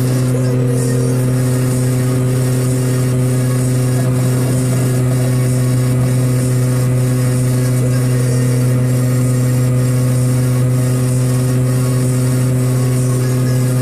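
Piaggio Ape 50's small two-stroke single-cylinder engine running steadily at a constant speed while driving, a loud, even drone that holds one pitch throughout.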